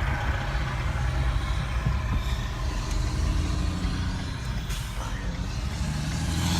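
Steady low engine rumble heard from inside a Ford Escape waiting in traffic, with a truck running close by. A brief high hiss comes about five seconds in.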